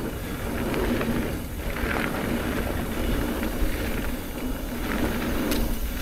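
Electric mountain bike ridden along a dirt trail: a steady rumble of tyres and wind buffeting the action camera's microphone, with a few short clicks and rattles from the bike.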